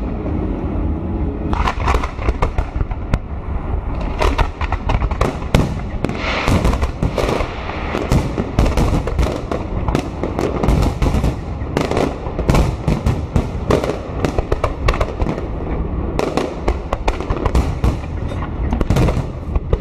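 A fireworks salute of aerial shells bursting in a dense, continuous barrage: many sharp bangs and crackles in quick succession over a constant low boom.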